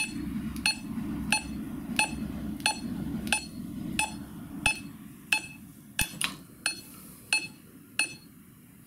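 Smartphone metronome app clicking at 90 beats per minute: a bright, pitched click about every two-thirds of a second, stopping about eight seconds in. A few softer taps of fingers flicking the small table-football figures against the ball fall around six seconds in.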